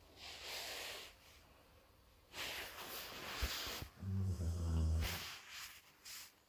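Golden retriever snoring in its sleep: long airy breaths, then a low snore about four seconds in, followed by a few short breathy puffs.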